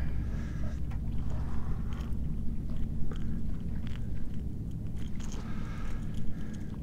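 Spinning reel being wound in and a topwater plug handled and recast: scattered sharp clicks over a steady low wind rumble on the microphone.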